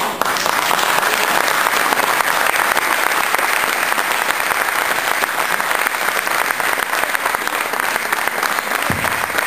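Crowd applauding steadily, a dense mass of hand claps. A short low thump comes near the end.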